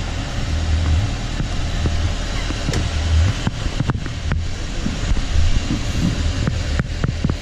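A boat's engine running steadily, with wind on the microphone and a few sharp clicks and knocks.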